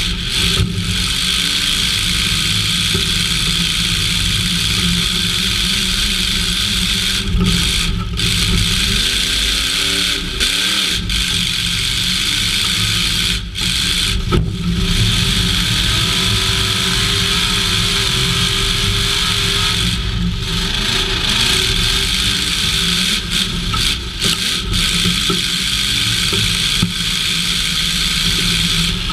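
Half-ton pickup truck's engine running loud through open exhaust pipes that stick straight up through the hood, heard from inside the cab; it runs steadily with its pitch rising and falling several times as it is revved while driving.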